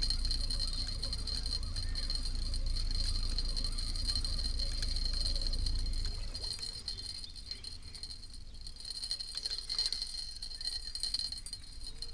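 Wind buffeting the microphone as a low rumble that eases about six seconds in, over a faint, steady high-pitched whine and light scattered ticks.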